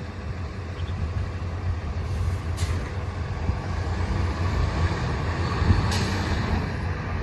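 Heavy truck engine running with a steady low rumble that slowly grows louder, with two short air hisses about three seconds apart.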